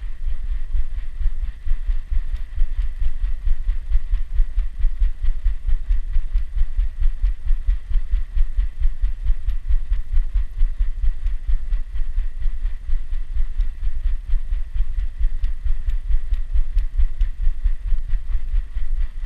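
A dog's rhythmic breathing and movement picked up through a GoPro strapped to its body, heard as steady, rapid low thumps, several a second.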